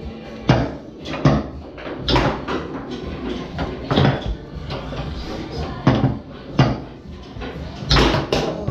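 Tornado foosball table in play: sharp knocks of the ball being struck by the rod men and hitting the table, about eight of them at irregular intervals.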